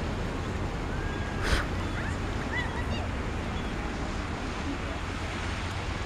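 Steady wash of small surf with wind on the microphone. There is a brief loud burst about a second and a half in, and a few faint short chirps.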